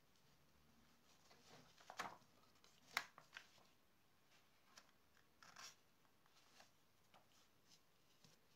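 Faint rustling and light clicks of paper being handled while thread is pulled through the fold of a paper booklet during hand saddle-stitching. The two sharpest clicks come about two and three seconds in, with a short rustle near the middle.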